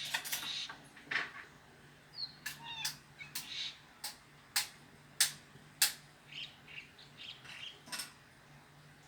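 Cats eating dry food: a string of irregular sharp crunches and clicks, with a few brief high chirps in between.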